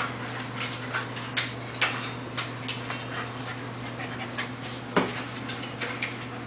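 Two small dogs play-fighting on a tile floor: panting and scuffling, with many short irregular clicks and knocks and a sharper knock about five seconds in.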